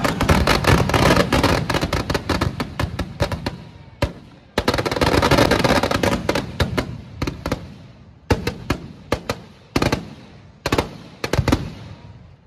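Firecrackers inside a burning Ravana effigy going off. Two dense runs of rapid bangs come first, then single loud bangs about once a second near the end.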